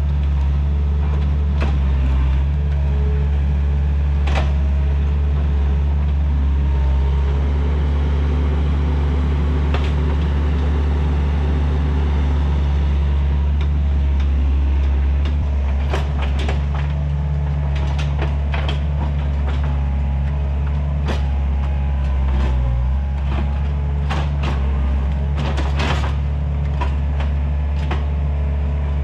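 Takeuchi TL130 compact track loader running under load, its diesel engine holding a steady low drone throughout. In the second half comes a run of sharp cracks and snaps.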